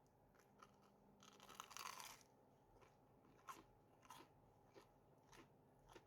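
Faint crunch of a bite into crisp fried food, likely the fried mozzarella sandwich, followed by soft chewing clicks.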